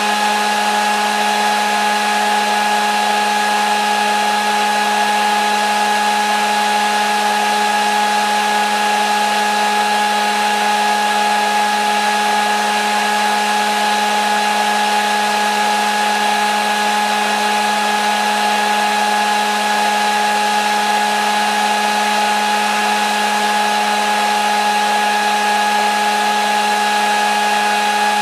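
Hair dryer running steadily: a constant motor hum and whine over the rush of blown air.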